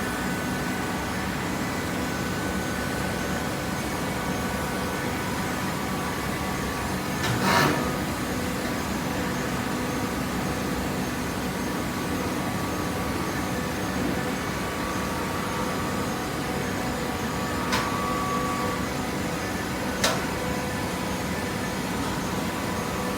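Hydraulic waste-paper baler running steadily with a mechanical hum, with one louder surge about a third of the way in and two sharp clicks near the end.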